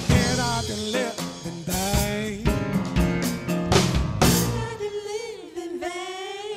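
Live gospel band playing: voices singing over drums and band, with a quick run of drum hits in the middle. Near the end the band drops back and a sung note is held and slides in pitch.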